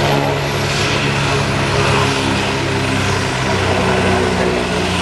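AgustaWestland AW109 twin-turbine helicopter running on the ground with its main rotor turning: a steady, loud rotor thrum with a thin high turbine whine over it.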